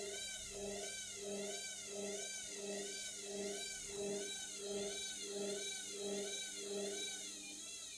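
Indesit washing machine's drum motor whining in a wavering cycle, its pitch rising and falling about once every 0.7 seconds over a pulsing hum, as it struggles to reach spin speed with an unbalanced load.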